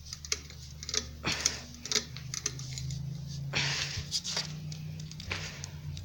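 2001 Hampton Bay St. Claire 52-inch ceiling fan running on medium speed, its motor giving a steady low hum. Scattered light clicks and ticks come through, with a brief rustle about three and a half seconds in.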